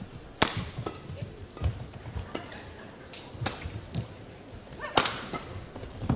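Badminton rackets striking a shuttlecock back and forth in a fast rally: sharp single hits every half-second to second, the loudest just after the start and again about five seconds in.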